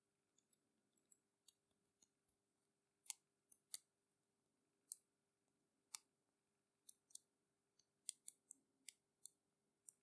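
Brass number wheels of a handmade stainless-steel combination lock clicking as a thumb turns them: small, sharp clicks at an irregular pace, coming faster in a run near the end.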